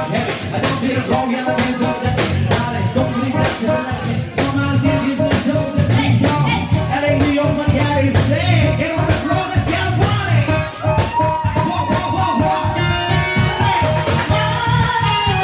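Live band playing an upbeat dance number: a steady drum-kit beat under keyboards, with a singing voice.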